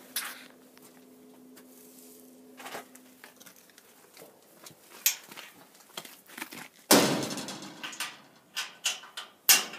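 Metal access doors and panels on a tub grinder being handled: scattered clanks and knocks, with one loud bang and ringing about seven seconds in and another sharp hit near the end.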